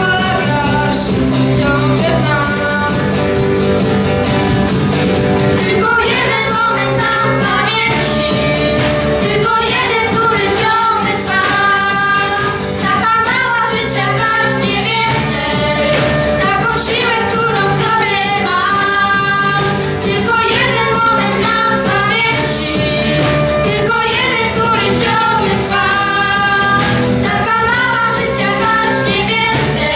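A young girl sings a song with a live children's band: transverse flute, electronic keyboard and a steady drum beat.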